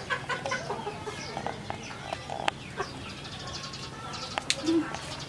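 Chickens clucking, with a few sharp clicks.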